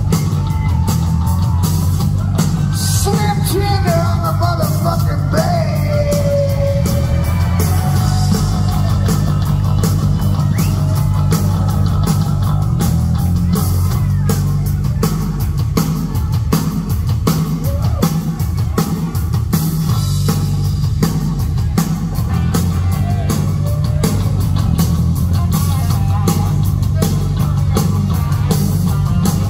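Live hard rock band playing loud: distorted electric guitars, bass guitar and drums, with a male singer at the mic. Heard from the crowd, with a heavy, boomy low end.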